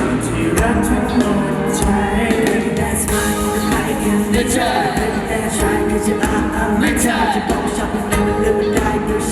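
Live amplified pop band playing a song, with drums and some singing over the music.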